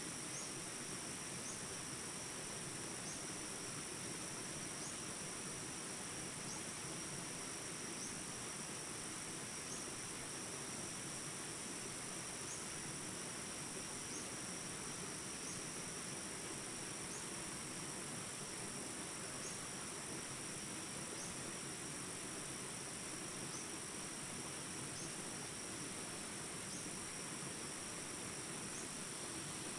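Jungle insects droning steadily at a high pitch, with a short chirp repeating about every second and a half, over the even rush of small rapids.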